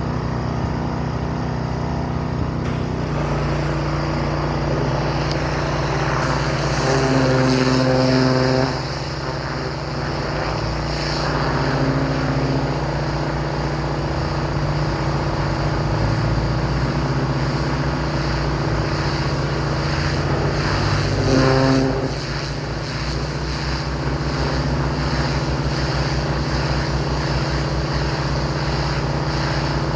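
Pressure washer engine and pump running steadily, with the hiss of the spray. The drone gets louder twice, briefly, about seven and twenty-one seconds in.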